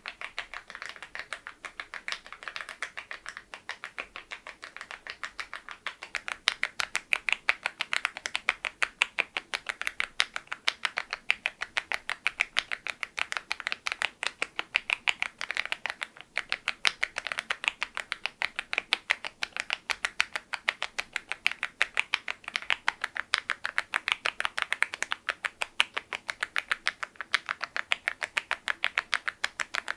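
Mechanical keyboard typing on LEOBOG grey wood switches under KEYTOK very-low-profile ('Berry' profile) keycaps: a fast, continuous run of sharp keystroke clicks, several a second, a little louder from about six seconds in.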